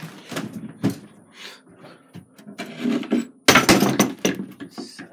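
Knocks, clatters and rustling of things being handled and moved about, with the loudest clatter lasting about a second midway.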